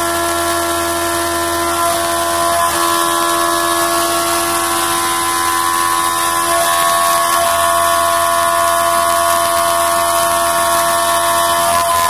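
CNC milling machine cutting aluminium at high speed: the spindle and milling cutter give a steady whine of several tones over the hiss of flood coolant spraying onto the cut.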